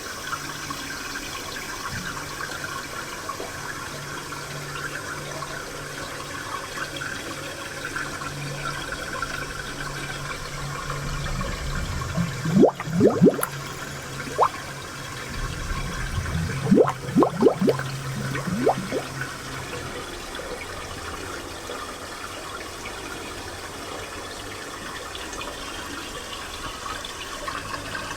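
Spring water flowing and trickling steadily, with two runs of short gurgling plops, the loudest sounds, a little before and a little after the middle.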